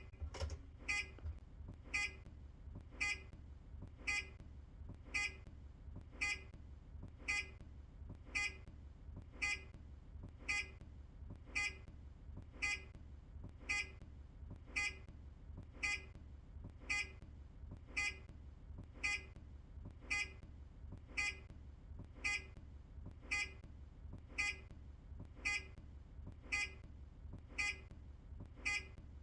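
Turn-indicator buzzer of an earlier Optare Solo bus, beeping evenly about once a second, over a steady low hum.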